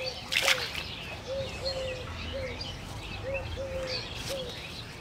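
A dove cooing in low, short notes about once a second, with small birds chirping higher over it. A brief splash about half a second in, from water tipped out of a metal bowl into the pond.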